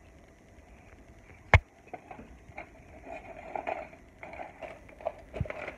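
Handling noise from a phone being carried and moved around: one sharp knock about a second and a half in, then scattered rustling and light knocks, with two more knocks near the end.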